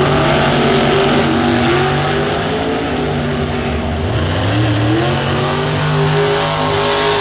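Two drag-racing cars launching side by side and running down the strip at full throttle. Their engine notes rise, drop back about two to three seconds in, then rise again.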